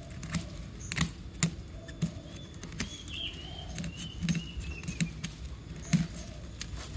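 Scattered small clicks and taps as a scalpel blade cuts the coconut seedling's roots and fingers handle the root ball, with a few soft knocks.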